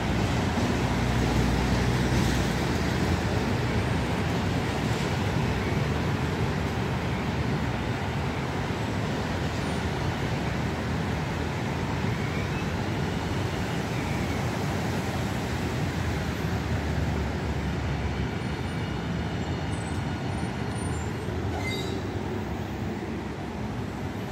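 A new low-floor city tram approaching on its rails and drawing up close, over steady road traffic noise. Faint high-pitched tones come in over the last few seconds.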